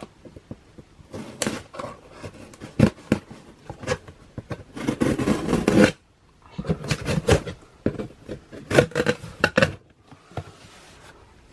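A shipping package of clothing being opened and handled: irregular scrapes, clicks and rustles of the packaging, with a longer stretch of noisy rustling about five seconds in.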